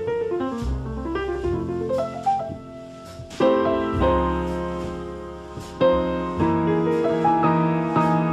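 Background music: solo piano playing melodic phrases, with full chords struck twice in the middle.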